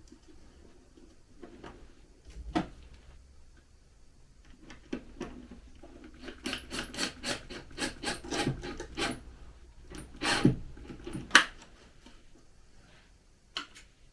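Hand work on wood: a run of rhythmic rubbing or scraping strokes, about three a second, between a few sharp knocks.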